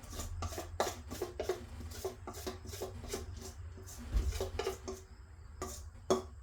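Utensil scraping banana nut muffin batter in a bowl and off its side, in a run of short rasping strokes that thin out near the end, with a dull thump about four seconds in.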